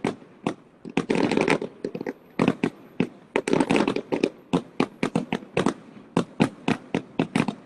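Fireworks going off in quick succession: a string of sharp bangs, several a second, with thicker spells of crackling about a second in and again near four seconds.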